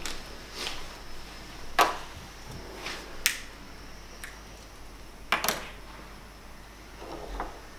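Several sharp clicks a second or two apart, the strikes of a cigarette lighter as a cigarette is lit, with a close double click a little past five seconds.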